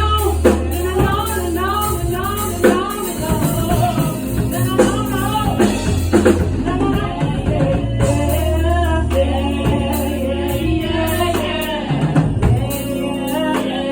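Music with singing: a vocal line over bass and a drum beat.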